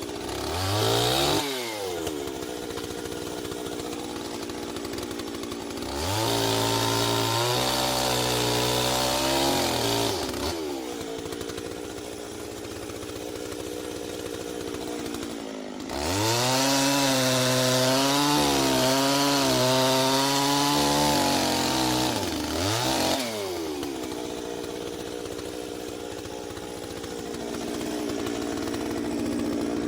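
Two-stroke chainsaw running: idling, then revved up hard for about four seconds, dropped back to idle, and revved again for about six seconds, with short throttle blips just before each long rev ends and shortly after the second.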